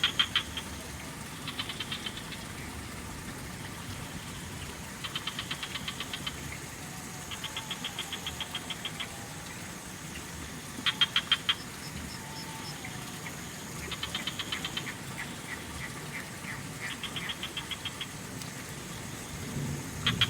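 Frogs calling back and forth in rapid pulsed trills, each call a quick run of about ten clicks a second lasting up to a second and a half, several frogs at different distances. Under them a steady high insect drone and a low haze of trickling water.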